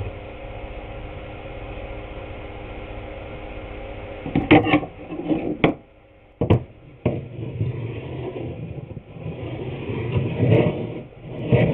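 A steady motor hum that cuts off about four seconds in, followed by a few sharp knocks and then wooden boards being scraped and rubbed together as they are handled.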